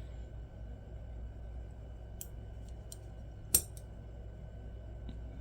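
Small metal parts of a disassembled folding knife being handled, giving a few light clicks and one sharper click about three and a half seconds in, over a steady low hum.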